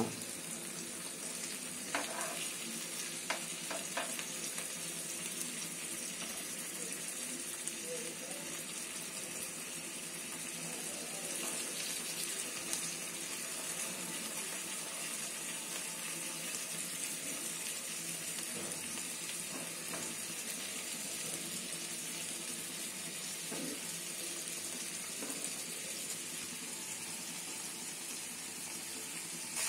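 Tilapia fish fingers sizzling steadily in shallow oil on a flat tawa. A few light taps of a metal spoon on the pan come in the first seconds as the pieces are turned over.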